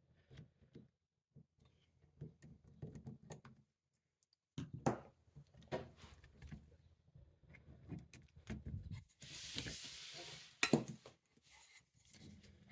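Faint, scattered clicks and small knocks of a disc-detainer padlock and its picking tools being handled, with a brief scraping hiss about nine seconds in.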